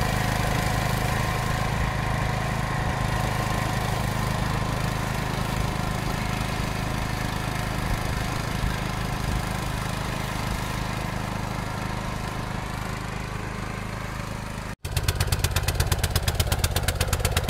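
Small petrol engine of a DAKR two-wheel tractor with a front rotary drum mower, running steadily under load while mowing grass. After an abrupt cut near the end it is heard up close, with a rapid, even pulsing beat of about five pulses a second.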